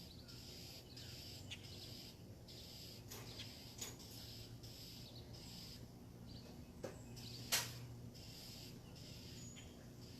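Faint outdoor chorus of high chirping calls that come and go in short runs, with a few sharp clicks; the loudest click comes about three-quarters of the way through.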